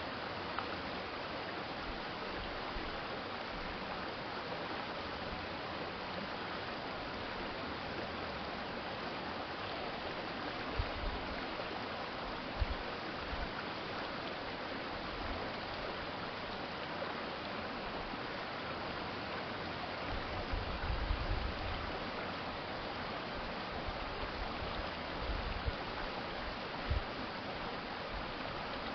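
Steady rushing of an urban stream's flowing water, with a few brief low bumps about 11, 13, 21 and 27 seconds in.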